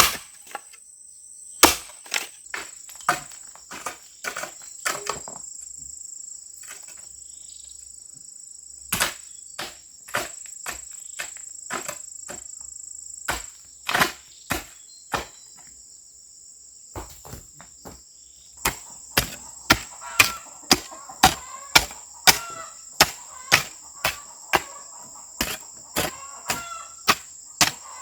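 Repeated sharp strikes of a hand tool, irregular at first, then steadier at about two a second from around two-thirds of the way in. Crickets trill steadily at a high pitch throughout.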